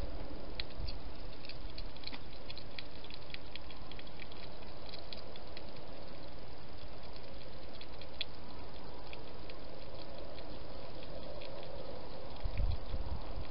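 A hedgehog with its mouth in a dish at feeding time, making quick, irregular little wet clicks and smacks, thickest in the first few seconds. A brief low bump comes near the end.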